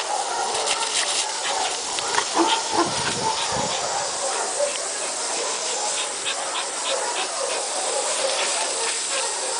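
Garden hose spraying a jet of water that hisses steadily and spatters on gravel, with scattered small ticks of water on stones.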